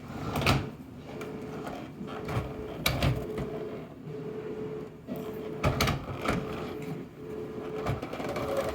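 Scattered clicks and knocks of hard plastic parts being handled, over a faint steady hum that breaks off and comes back several times.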